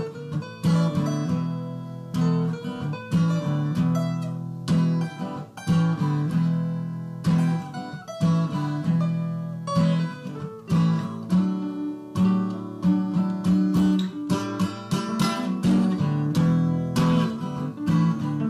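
Background music: an acoustic guitar playing a steady run of picked notes and chords.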